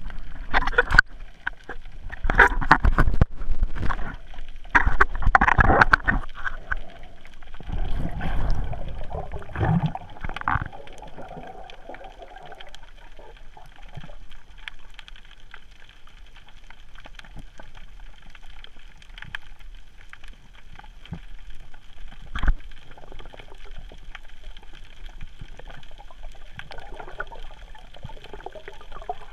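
Water sloshing and gurgling on an underwater camera's housing, with loud irregular surges for the first ten seconds or so, then settling to a quieter steady underwater hiss. One sharp knock about twenty-two seconds in.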